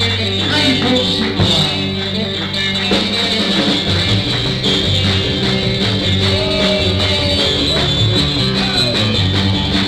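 Live country-rock band playing an instrumental passage: guitar over a moving bass line and a steady drum beat.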